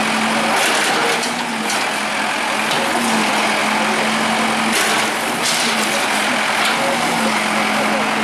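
Bulldozer's diesel engine running with a steady drone, with rougher, noisier bursts about a second in and again around five seconds in as the machine works.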